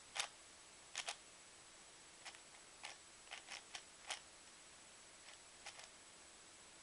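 Plastic 3x3x7 cuboid puzzle being turned by hand: about a dozen short, sharp clicks of its layers turning, irregularly spaced, some in quick pairs.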